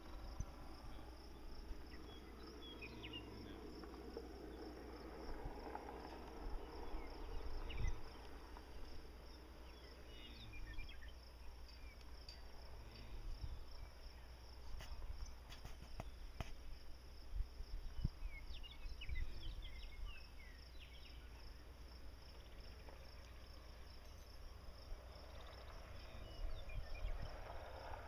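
Insects trilling steadily in a high, evenly pulsing chirr, over a low rumble and a few scattered short high chirps.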